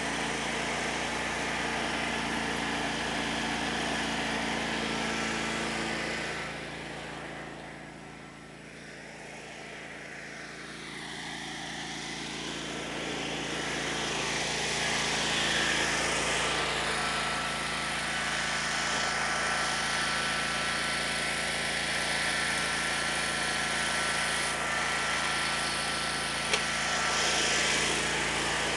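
Tractor engine running steadily, its level dropping for a few seconds about a quarter of the way through and then rising back.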